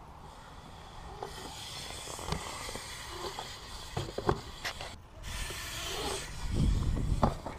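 BMX bike tyres rolling on a concrete skatepark with a steady hiss, broken by several sharp knocks and clacks of the bike hitting and landing on the ramps. Near the end a louder low rumble as the bike rolls up the bowl wall close by.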